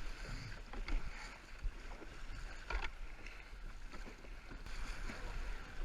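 Canoe paddles stroking through river water, with a couple of sharper splashes about one and three seconds in, over a steady low rumble of wind on the microphone.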